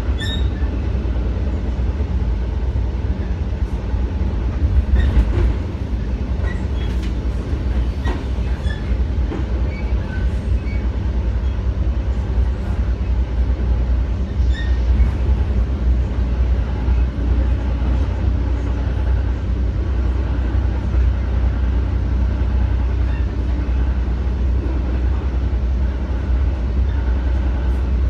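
Steady low rumble of a passenger train car running at speed, heard from inside the car: wheels on rail with a few light clicks and rattles.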